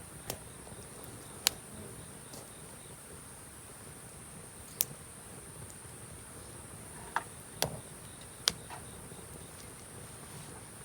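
Cedar-wood campfire crackling, with about six sharp pops at irregular intervals, over steady high-pitched chirring of night insects.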